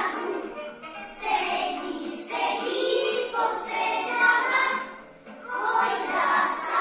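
A group of young children singing a song together in unison, with a brief break between phrases about five seconds in.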